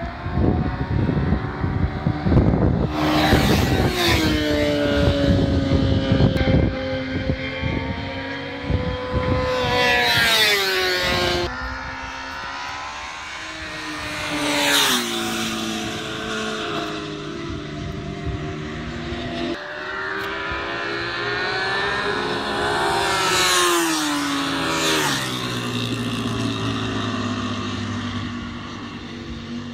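Racing motorcycle engines passing one after another at full throttle, each note rising as the rider accelerates and shifts gear, then dropping in pitch as the bike goes by. Several passes follow one another, the loudest in the first half.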